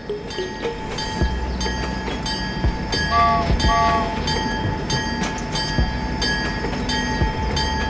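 Toy steam locomotive running along its plastic track, pulling wagons, with a steady repeating chugging and clicking. It sounds two short whistle toots about three seconds in.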